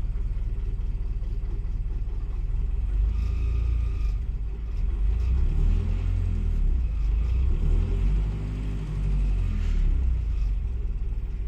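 BMC marine diesel engine running after a preheated start, a steady low rumble whose pitch and loudness rise and fall a few times from about five seconds in. Oil pressure and charging voltage are reported good.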